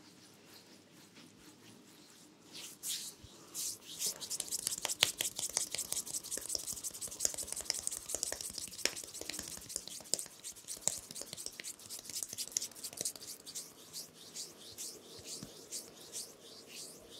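Hands rubbing and stroking over a man's face and hair in a close-miked massage. A quick, crisp brushing and rustling starts about two seconds in and soon becomes dense and continuous.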